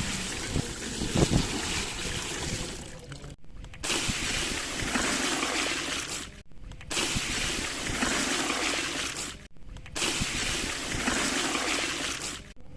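Water running and splashing over a plastic toy truck as it is washed, in four stretches broken by three short gaps.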